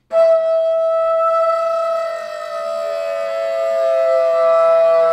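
Bass flute played and sung into at once: the flute holds one long steady note while the player's voice glides slowly downward in pitch beneath it.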